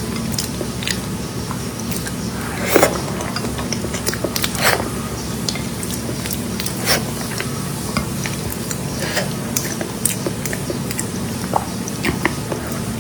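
Close-miked eating sounds: chewing with many small mouth clicks, and two louder bites about three and five seconds in, over a steady low hum.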